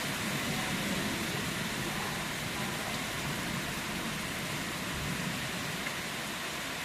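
Rain pouring down steadily in a thunderstorm, an even hiss with no thunderclap.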